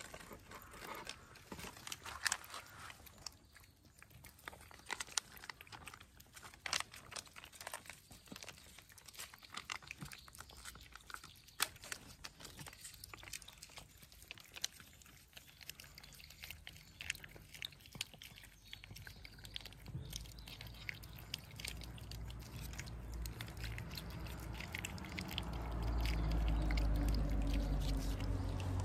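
Cats eating, with many small crisp crunches of food being chewed. Near the end a low rumble swells up and grows louder than the chewing.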